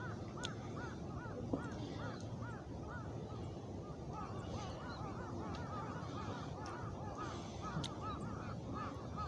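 A flock of birds calling without a break: many short rising-and-falling calls, several a second and overlapping, over a steady low background hiss. One sharp click about a second and a half in.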